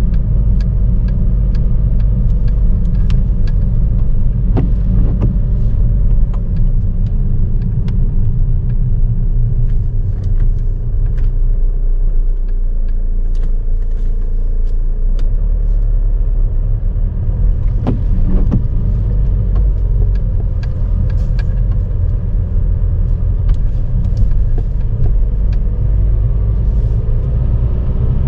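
Car driving in rain: a steady low road-and-engine rumble, with many scattered sharp taps of raindrops striking the car's body and windscreen.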